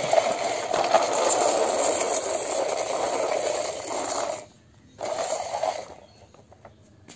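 Hard plastic wheels of a toy police jeep rolling along concrete under a pushing hand, a steady rattling scrape with a whir. It stops after about four seconds and comes back for about a second.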